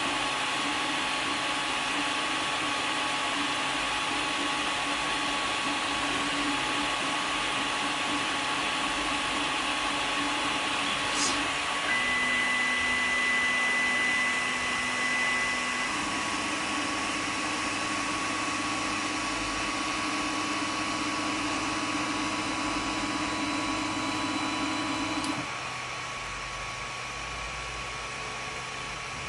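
3D printer running: a steady fan hiss with stepper-motor whines that hold a pitch and then jump to a new one every few seconds as the moves change. Near the end the whine stops and the sound drops to a quieter hiss.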